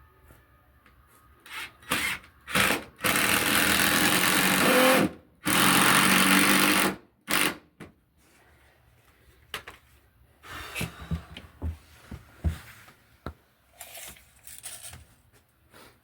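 Power drill running in a couple of short bursts, then two longer runs of about two seconds each, followed by scattered knocks and clicks.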